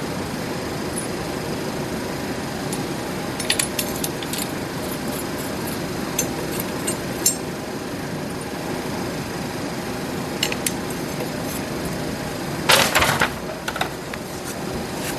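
Scattered light metallic clinks of steel bolts, lock washers and hand tools being handled, with a louder clatter of metal near the end, over a steady background hum.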